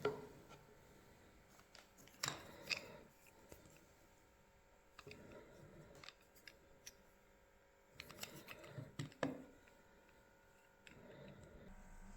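Scattered clicks and light knocks of hand work with small tools or objects, with a couple of sharper knocks about two seconds in and another cluster near the nine-second mark.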